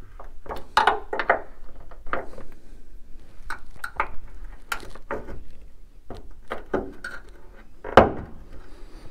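Light metal clicks, taps and scrapes of a thin hand tool working at the upper mount of a bonnet gas strut to push out its retaining split pin. The taps are irregular, with one sharper knock near the end.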